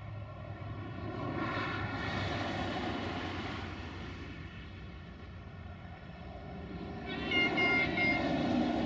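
Small camera drone's propellers whining steadily in a stack of even tones over a rushing noise, swelling and fading in loudness. Three short high beeps come near the end.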